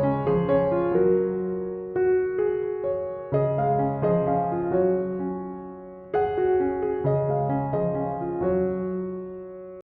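Background piano music: calm chords and melody notes struck and left to fade, with new chords about every one to three seconds. The music cuts out for a split second near the end.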